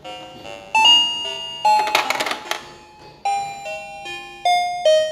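Toy drink vending machine playing its electronic jingle, a simple tune of single beeping notes from a small speaker, set off when a coin goes in. A brief clatter about two seconds in.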